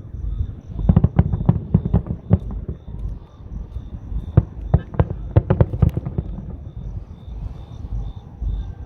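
Fireworks going off: a rapid, irregular run of sharp bangs and crackles over a low rumble, thickest about a second in and again around the middle.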